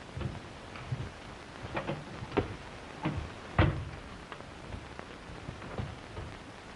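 Steady hiss and crackle of an old 1931 optical film soundtrack, with a handful of irregular knocks and clicks, the loudest about three and a half seconds in.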